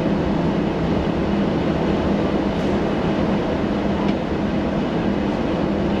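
Steady low rumble and hum inside a moving vehicle.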